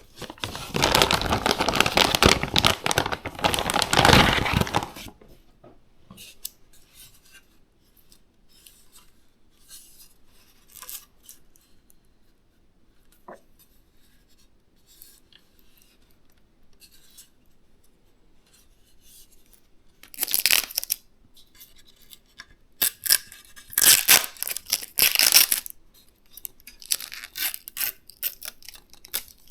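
Packaging being crinkled and torn by hand: loud rustling for about the first five seconds, then faint small clicks of handling, then short bursts of crinkling again from about twenty seconds in.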